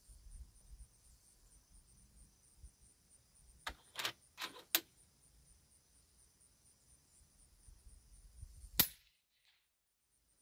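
A single sharp shot from a .30-calibre SKOUT Epoch PCP air rifle near the end, the loudest sound. About four seconds in there is a quick run of four sharp clicks.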